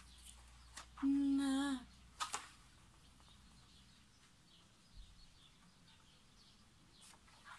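A woman's short closed-mouth hum of appreciation, about a second in and under a second long, with a couple of brief rustles or clicks around it; then quiet room tone.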